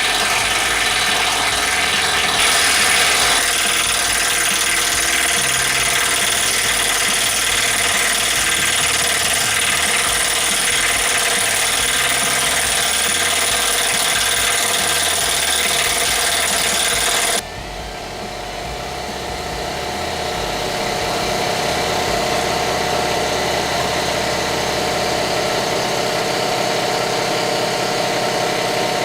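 Loud, steady machine noise from a motorised tool or machine running continuously. About seventeen seconds in the sound changes abruptly: the hiss drops away, the level dips, then builds back up over a few seconds.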